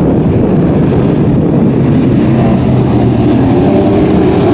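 Autocross super buggy engines running hard on a dirt track, with a dense low rumble and an engine note rising in pitch from about halfway through.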